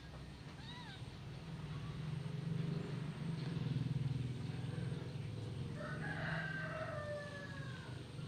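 A newborn kitten gives a short mew about a second in, and a rooster crows for over a second near the end, its call falling slightly. A low steady hum runs underneath and swells in the middle.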